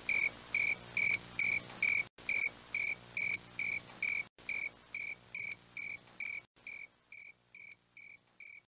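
Evenly repeated high chirping, about two short chirps a second, growing fainter toward the end. A faint low hum runs under it and stops about seven seconds in.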